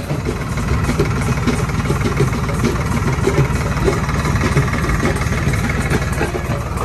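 Farmtrac 60 tractor's diesel engine running steadily at low revs, heard from the driver's seat.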